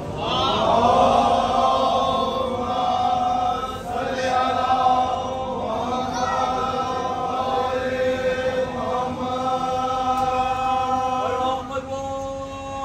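Men's voices chanting a Shia noha (Muharram lament) together in long held notes, several voices sounding at once.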